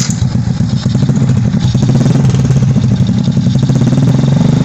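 Suzuki Smash single-cylinder four-stroke motorcycle engine running steadily through a newly fitted open racing muffler (knalpot brong): a loud, rapid exhaust pulse that grows slightly louder over the first couple of seconds.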